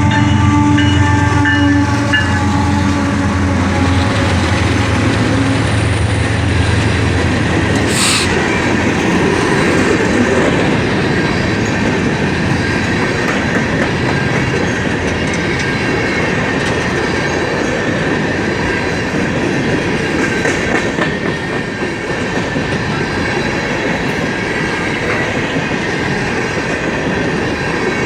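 BNSF coal train passing. A droning pitched engine-like sound fades out over the first several seconds, then the cars roll by with wheels clacking over the rail joints and a thin, steady wheel squeal.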